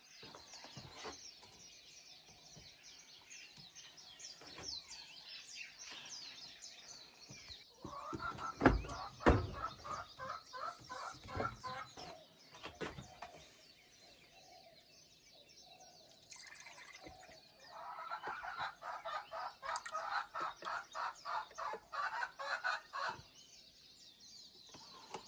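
Domestic hens clucking in two long runs of quick repeated calls, over songbirds chirping high and fast, with a couple of sharp knocks as the first run begins.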